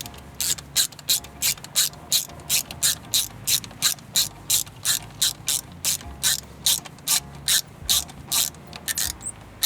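Hand ratchet clicking in a steady rhythm, about three clicks a second, as screws are driven in to fasten a car door speaker.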